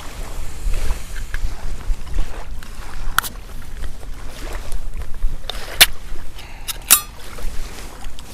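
Steady low rumble with several sharp clicks and knocks from handling gear; the loudest comes about six seconds in, with two more close together about a second later.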